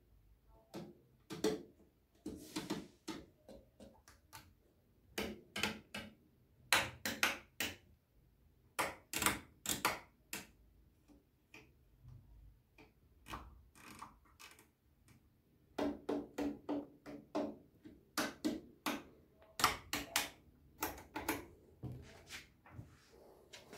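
Controls on a Sony TA-F7 amplifier's front panel being worked by hand: the attenuator knob and the other knobs and lever switches click through their detents. The clicks come in runs of several quick clicks, with a quieter stretch near the middle.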